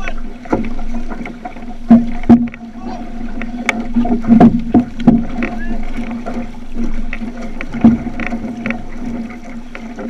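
Outrigger canoe under paddle: water rushing along the hull with the splash and sharp knock of paddle strokes, the loudest around two seconds in, around five seconds and near eight seconds, over a steady low hum.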